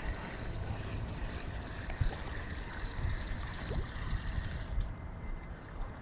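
Wind rumbling on the microphone, with light handling knocks and a faint steady high hiss.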